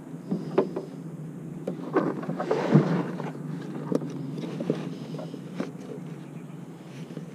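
Hands rummaging in a soft fabric fishing tackle bag: rustling, loudest a couple of seconds in, with several sharp clicks and knocks.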